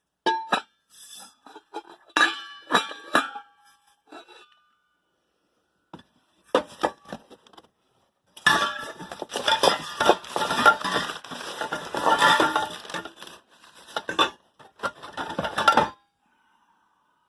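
Small metal objects clinking and clattering as they are handled: a few separate clinks, a pause, then a longer stretch of busy clattering that stops suddenly near the end.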